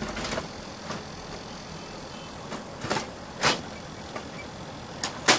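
Hard plastic clicks and knocks from an HP LaserJet P2015 as its toner cartridge is seated and the front door is pushed shut: a few separate sharp knocks, the loudest near the end.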